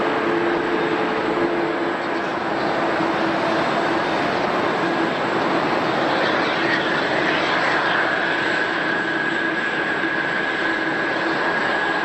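Jet airliner engines running steadily, with a high whine that rises in about two-thirds of the way through and then holds.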